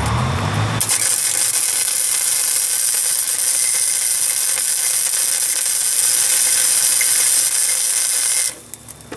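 Electric arc welding a tack on a steel Jeep frame patch: after a low hum, the arc strikes about a second in and hisses steadily for some seven seconds, then cuts off suddenly.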